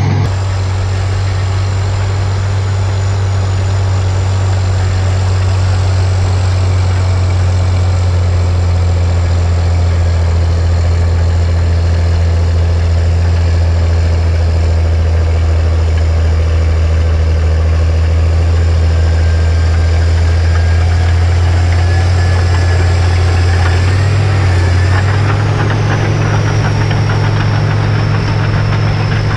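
Cat D6C crawler dozer's diesel engine running steadily as it works, a deep drone with a diesel clatter. About 25 seconds in, the engine note shifts and a high whine drops in pitch.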